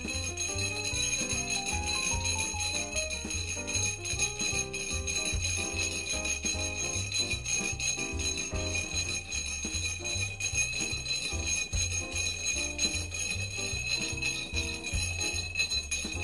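A bar spoon stirring ice in a rocks glass, a steady tinkling clink as the vodka and coffee liqueur are mixed. Background music with a bass line plays throughout.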